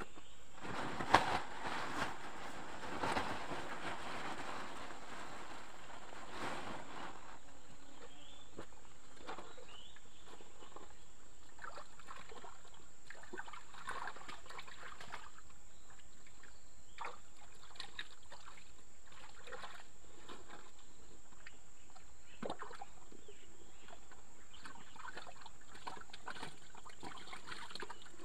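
Splashing and sloshing of muddy ditch water as a person moves through it. It is busiest in the first several seconds, with one sharp splash about a second in, then thins to scattered small splashes and squelches.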